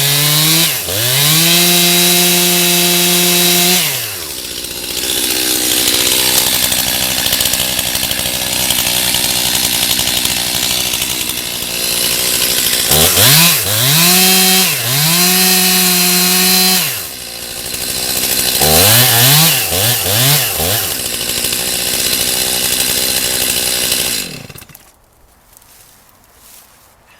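Stihl MS 271 two-stroke chainsaw cutting into a large oak trunk at full throttle. The engine is revved freely several times, with bursts of quick throttle blips, and its pitch is held down under load in the cut. The saw's sound stops abruptly near the end.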